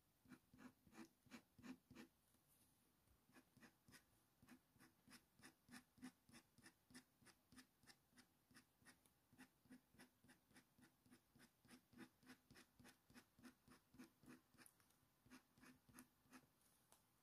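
Faint, quick scratching strokes of a Slice ceramic-blade tool scraping fine hair lines into coloured pencil on paper, about three strokes a second.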